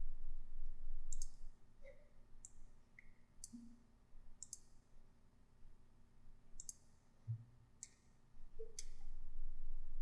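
Computer mouse buttons clicking, about half a dozen single clicks spaced irregularly, each short and sharp.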